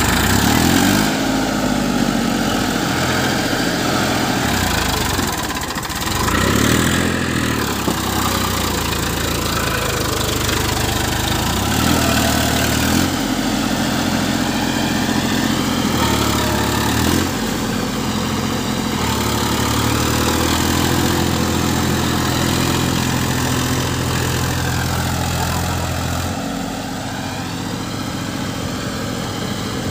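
Massey Ferguson 241 DI tractor's three-cylinder diesel engine running under heavy load as the tractor churns through deep mud, stuck. Its pitch steps up and down repeatedly as the throttle is worked, and it settles lower and quieter near the end.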